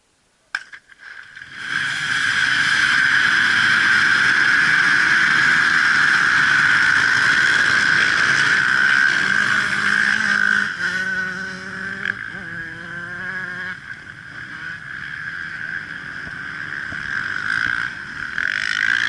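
A single sharp bang as the start signal, then a pack of dirt-bike engines starting and revving together into one loud, dense mass of engine noise. It eases off somewhat after about ten seconds and builds again near the end.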